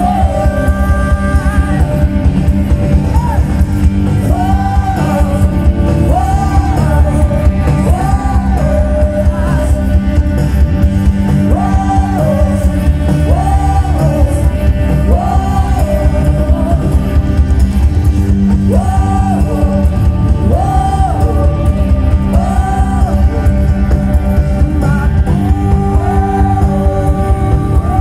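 Live rock band with a male lead singer, playing loud through the concert's big speakers and heard from within the crowd: a sung melody of held, bending notes over a heavy, booming bass.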